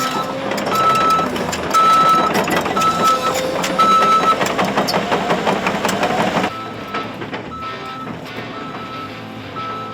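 A heavy machine's backup alarm beeping about once a second over a running diesel engine and repeated metallic clanking, like steel tracks on a trailer deck, while the excavator is loaded onto the lowboy trailer. The engine and clanking cut off suddenly about two-thirds of the way in, leaving the beeping quieter.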